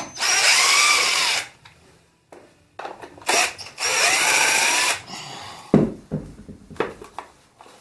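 Cordless drill-driver with a socket bit run in two bursts of about a second and a half each, its motor whine rising and then falling, as it backs out a bolt on the motorcycle frame. A few knocks and clatter of parts being handled near the end.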